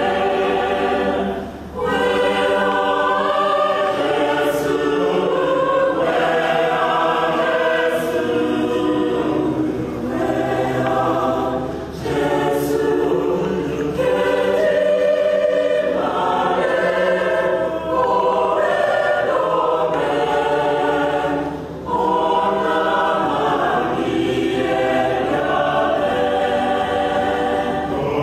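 Mixed choir of men's and women's voices singing together in sustained phrases, with brief breaks between phrases three times.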